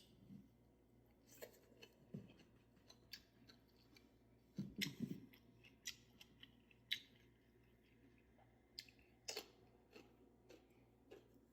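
Open-mouthed chewing: irregular wet smacks and crisp clicks of food being chewed, with a short busier stretch about halfway through.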